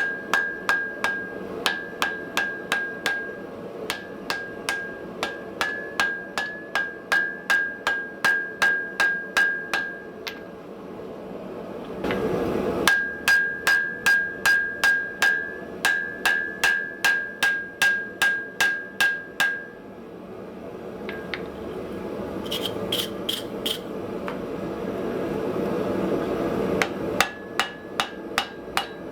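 Hammer blows on hot wrought iron over an anvil, straightening the bar, at about two to three a second in two long runs, each blow leaving the anvil ringing; a few lighter, scattered strikes near the end. Under and between the runs, the steady rushing of a gas forge burner.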